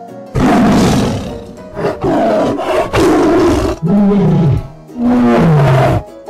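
Young tigers growling and roaring in five loud bursts, one after another, the last two falling in pitch.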